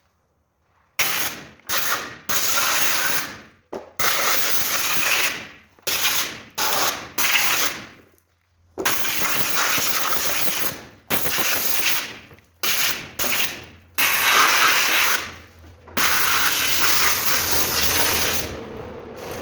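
High-pressure washer jet spraying water onto a washing machine drum to clean off built-up grime, in about a dozen loud hissing bursts that start and stop abruptly as the trigger is squeezed and released, with a low hum under the longer bursts.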